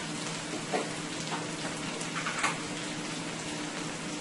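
Sliced potatoes frying in oil with onion and garlic on high heat: a steady sizzle with a few crackles and pops, the loudest cluster about two seconds in, over a faint low hum.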